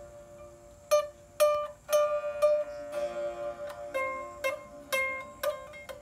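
Sape, the Orang Ulu boat-lute of Borneo, played solo. A steady low note rings under the melody, and sharp single plucked notes start about a second in and follow one another quickly.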